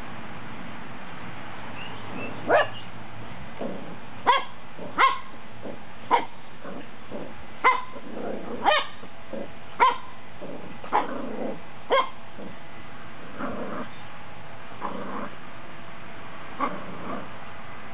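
Cockalier puppy barking in about ten short, sharp barks, roughly one a second, with softer low grumbles between and a lull near the end. She is barking at a Pepsi can she is wary of.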